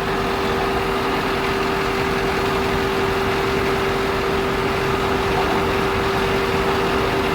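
An engine idling steadily: an even mechanical drone with one constant tone held throughout.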